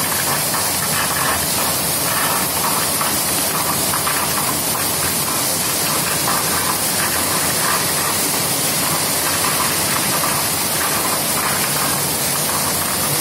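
Torrential rain falling in a loud, steady hiss, driven by strong wind.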